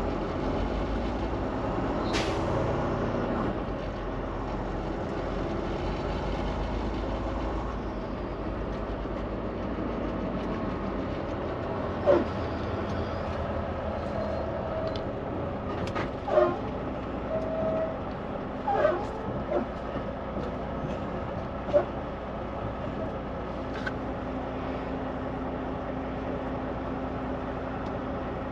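Inside the cab of a Volvo semi-truck creeping through slow traffic: a steady engine and road drone, with a handful of short, sharp squeaks and clicks about twelve seconds in and over the following ten seconds.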